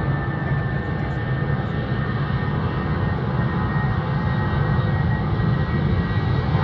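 Airbus A320 jet engines running as the airliner rolls along the runway: a steady low rumble with a high whine, growing a little louder toward the end.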